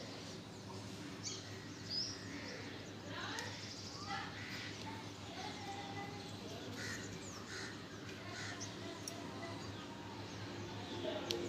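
Birds calling in the background, short whistled and cawing calls that rise and fall, over a steady low hum, with a couple of sharp clicks near the end.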